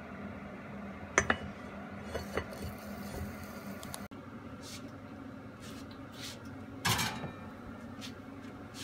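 Lid set onto an oval roasting dish with two sharp clinks about a second in and two lighter ones soon after. Then a few knocks and a louder scrape about seven seconds in as the dish goes onto the oven rack, over a steady low hum.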